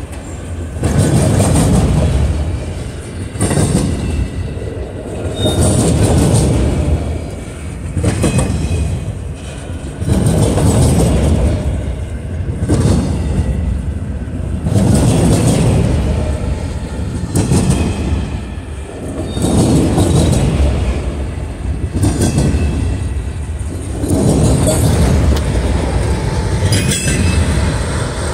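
Autorack cars of a freight train rolling past close by: a loud rumble that swells and eases about every two and a half seconds as each car goes by, with wheels clicking over the rail joints.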